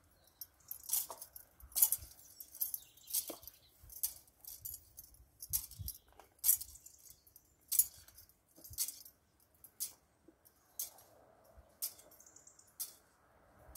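Metal censer swung on its chains, clinking about once a second in a steady swinging rhythm as the graves are incensed.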